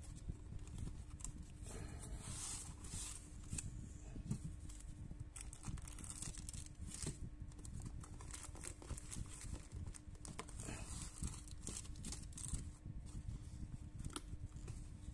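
Cardboard box and plastic blister packaging being pulled open by hand: tearing, crinkling and rustling with many small clicks and snaps.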